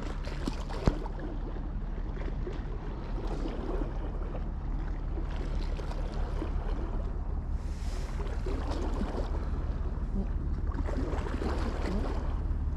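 Seaside ambience: wind on the microphone over small waves lapping, with a low steady hum underneath. A single sharp click about a second in.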